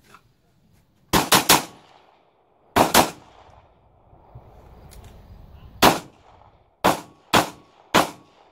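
Pistol fired in strings. Three rapid shots come about a second in, then a pair a second and a half later. After a pause there are four more shots, spaced roughly half a second to a second apart.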